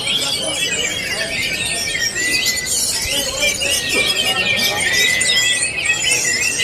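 Several orange-headed thrushes singing at once, a dense, unbroken mix of rapid, varied whistled and warbled phrases. A thin, steady high tone runs beneath at times.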